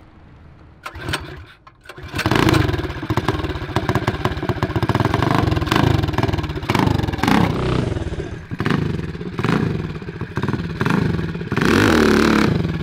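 Tillotson 225cc single-cylinder racing engine on a mini bike spluttering briefly and then catching about two seconds in, then revved up and down over and over. Near the end comes a longer, louder rev as the rear tyre spins in wet mud.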